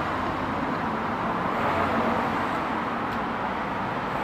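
Beer pouring from a can over ice into a plastic cup and foaming up, a steady rushing pour.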